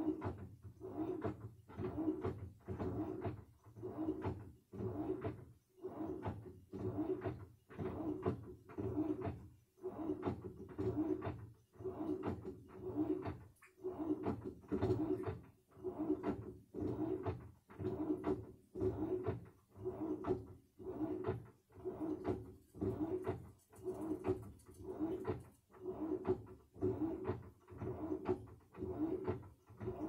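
Samsung washing machine in its wash cycle, churning the laundry back and forth with a swishing surge about once a second in a steady rhythm.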